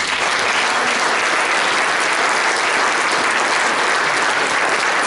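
Audience applauding: many hands clapping together, breaking out at once and holding steady.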